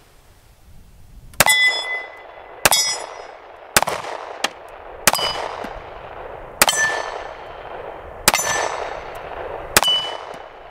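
Seven shots from a stainless Springfield Armory 1911 Garrison .45 ACP pistol, fired at a steady, unhurried pace, each followed by the ring of a hit steel target. The pistol fires 230-grain hollow points through the whole magazine without a stoppage.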